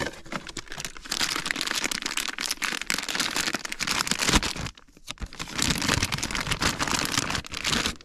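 Metallised anti-static bag crinkling as it is handled and opened and a new defrost control board is pulled out of it, in two long spells with a short pause about five seconds in.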